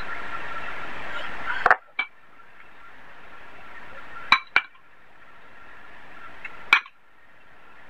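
Metal serving spoon clinking against a glass serving bowl and plate while curry is spooned out: two quick pairs of sharp clinks and a single one near the end. A steady background hum with a faint whine cuts out at the first clink, then slowly returns.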